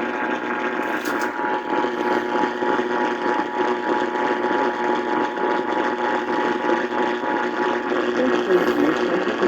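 Radio broadcast received with heavy static and hiss. Underneath it the Emergency Alert System two-tone attention signal sounds faintly and steadily, then stops about two seconds before the end while the static carries on.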